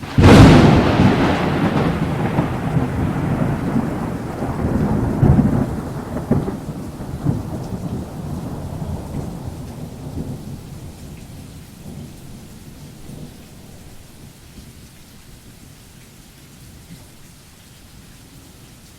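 A sharp thunderclap followed by a long rolling rumble that swells again twice and slowly fades, with a steady hiss of rain beneath.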